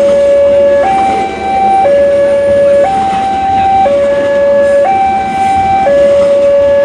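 Electronic two-tone warning siren alternating steadily between a lower and a higher note, each held about a second, sounding loudly over a low rumble.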